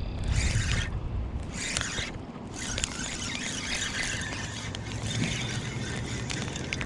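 Fishing reel being cranked in stretches while a hooked largemouth bass is fought in, the reel whirring over a steady low rumble of wind.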